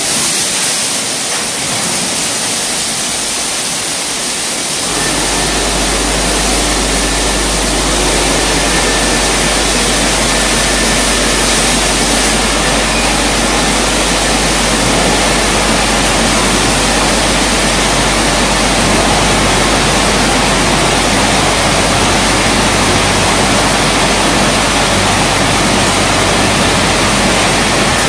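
Risense CC-690 tunnel car wash machine running: spinning brushes scrubbing a car under water spray, a loud steady rushing noise. A low machine hum comes in about five seconds in and holds.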